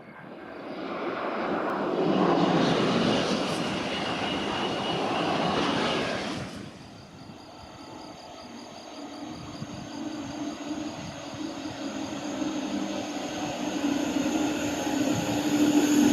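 A train passing close by: a loud rushing noise that swells and then cuts off abruptly about six and a half seconds in. Then a steady hum with a high whine grows slowly louder as another train draws near.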